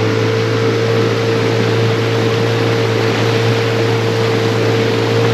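Boat motor running steadily at a constant speed, a loud even hum with rushing noise and no change in pitch.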